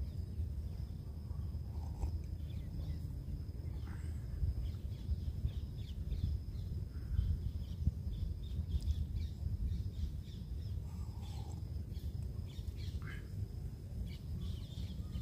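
Woodland ambience: scattered short bird chirps and calls over a steady low rumble, with a thin steady high-pitched tone underneath.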